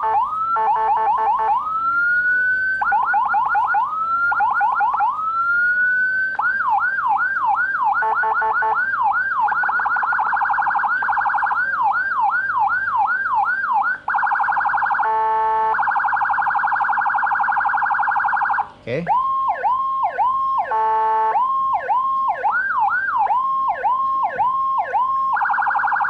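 Whelen Euro 60-watt electronic siren module sounding through a chrome horn speaker, cycling through its stored tones: repeated rising wails that speed up into yelps and a rapid warble, then a falling two-per-second sweep, with short buzzy horn blasts cut in. The tone switches with brief breaks about 14 and 19 seconds in as the buttons are pressed.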